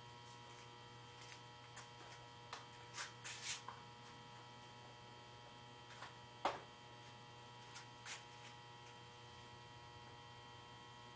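Faint steady electrical hum with a few steady tones over it, broken by scattered soft clicks and taps: a small cluster about three seconds in and the sharpest one about six and a half seconds in.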